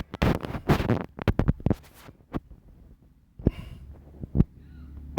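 Handling noise from a phone held close to the microphone: rubbing and rustling with a series of sharp clicks, the two loudest about three and a half and four and a half seconds in.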